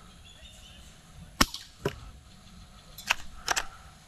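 Airsoft guns firing on the field: five sharp cracks, a pair about a second and a half in, the first and loudest of all, then three close together about three seconds in.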